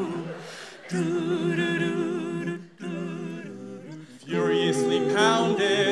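A six-voice a cappella group singing wordless held chords in close harmony, broken by short pauses. It swells louder about four seconds in, with a rising vocal slide.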